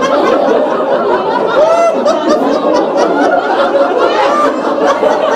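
A group of adults laughing together, many voices overlapping without a break: the deliberate, exercise-led laughter of a laughter yoga session.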